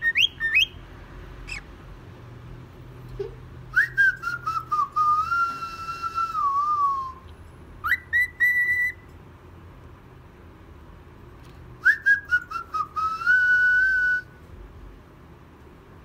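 Cockatiel whistling its song: two long phrases, each a run of short falling notes sliding into a long wavering whistle, with short chirps at the start and a couple of quick rising notes between them.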